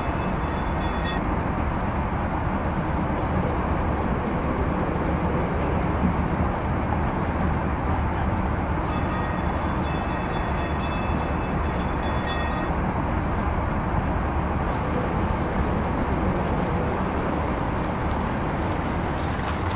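Streetcar rolling along its rails: a steady low rumble and rattle, with a high-pitched ringing tone briefly at the start and again for a few seconds midway.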